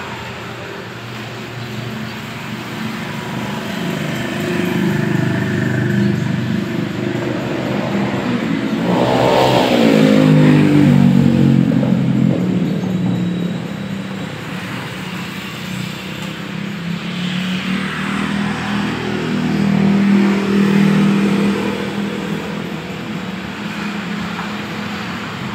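A small motorcycle engine passing by, louder as it approaches and falling in pitch as it goes past about ten seconds in, then swelling again near twenty seconds.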